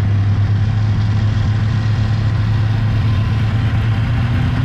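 Polaris XLT snowmobile's three-cylinder two-stroke engine running at steady low revs with an even, unchanging drone.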